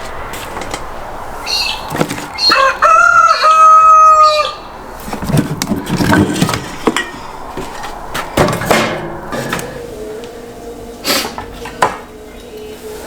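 A rooster crowing once, a couple of short notes and then a long held note that drops at the end, about two and a half seconds in; scattered knocks and rustling follow.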